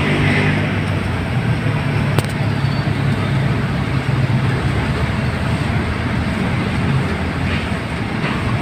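Steady low hum of a motor vehicle engine running, over a haze of traffic noise, with one short click about two seconds in.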